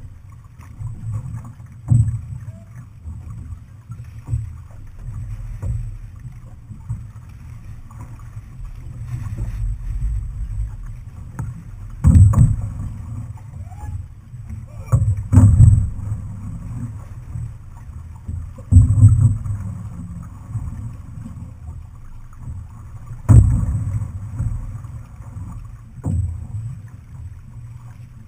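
Outrigger canoe under paddle, with a low rumble of wind on the microphone and water along the hull, broken by six sharp thumps at irregular intervals that are the loudest sounds.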